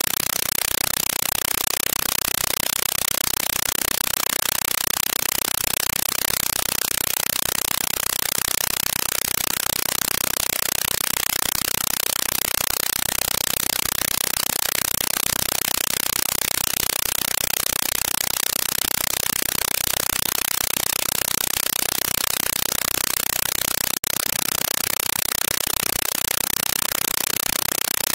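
Steady, even hiss of noise with no distinct events in it, heaviest in the high end; it cuts out for an instant once near the end.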